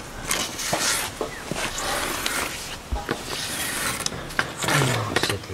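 Hands rubbing and scratching a young lion's fur, an irregular rustling and scuffing with scattered small clicks.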